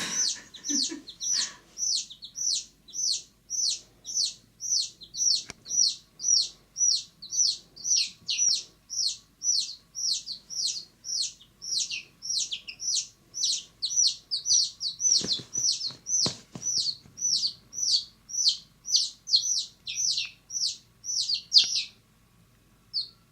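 A domestic chick peeping steadily, about two short high peeps a second, each sliding down in pitch. A few low knocks come around the middle, and the peeping breaks off briefly near the end.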